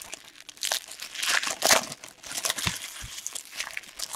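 Foil trading-card pack wrapper being torn open and crumpled by hand: an irregular run of crinkles and crackles.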